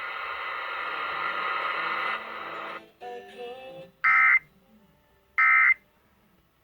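Emergency Alert System end-of-message data bursts over the radio: two short, loud, shrill buzzy bursts about 1.3 seconds apart, about two-thirds of the way through. Before them comes a few seconds of steady, muffled radio programme audio that cuts off after about three seconds.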